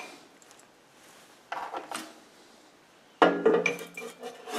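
Metallic clinks and rattles as the parted-off piece of 28 mm aluminium rod is picked out from among the aluminium swarf by the lathe chuck: a knock or two about a second and a half in, then from about three seconds in a burst of clinking with a short ring.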